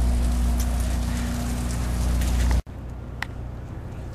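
Boat engine running steadily at idle, with wind noise on the microphone; about two and a half seconds in it cuts off abruptly, leaving a much quieter hiss with a few faint clicks.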